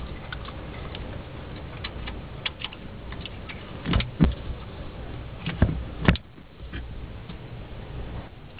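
Scattered clicks and knocks of hands fitting vacuum hoses and connectors around the throttle body in an engine bay, with a few louder knocks about halfway through.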